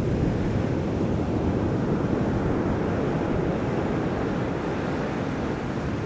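Mediterranean surf breaking on a sandy beach: a steady, unbroken rush of waves with no single crash standing out.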